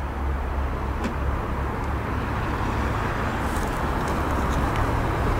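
Steady outdoor background noise, mostly a low rumble with a few faint ticks.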